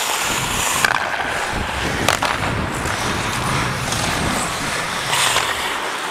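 Ice hockey skate blades striding and scraping across the ice, a steady gritty rasp, with a couple of sharp clicks about one and two seconds in.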